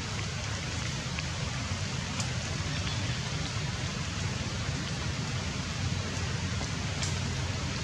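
Light rain falling steadily, an even hiss with a few faint drop ticks.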